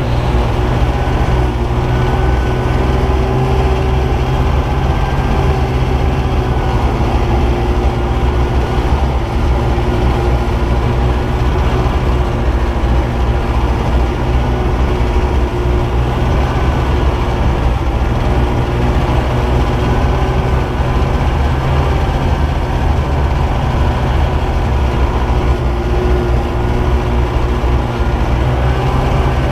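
Snowmobile engine running steadily at cruising speed, heard from on board the moving machine, with a constant low rumble and a steady whine that wavers slightly in pitch.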